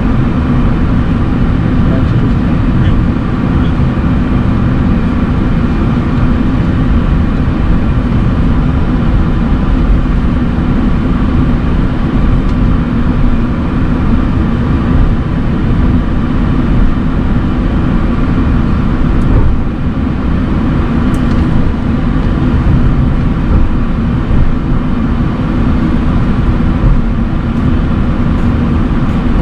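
Steady low rumble inside the cockpit of a Boeing 737-800 taxiing, with its engines at idle thrust, and a few faint steady tones above the rumble.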